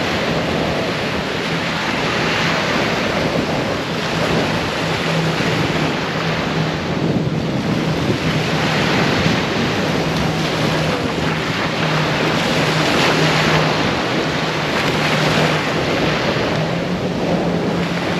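Small waves breaking and washing up on a sandy beach, swelling and easing every few seconds, with wind buffeting the microphone and a steady low hum underneath.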